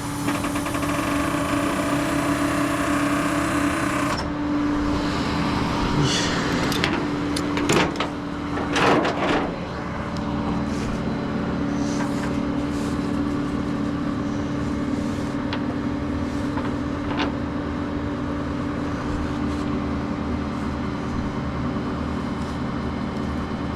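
A truck engine running steadily with a constant hum. A louder hiss stops about four seconds in, and a cluster of metallic clanks and rattles comes a few seconds later.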